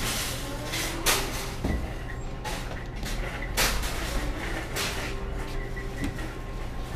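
Thin plastic grocery bags rustling in several bursts as groceries are bagged, with a sharp knock about a second in, over a steady low hum.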